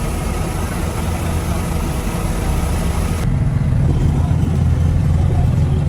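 Boat engine running steadily, a low drone under a broad hiss; about three seconds in the hiss drops away suddenly and the drone comes through louder.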